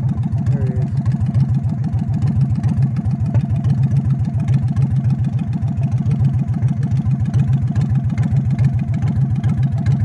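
An engine running steadily, a low hum with a fast, even pulse that does not change.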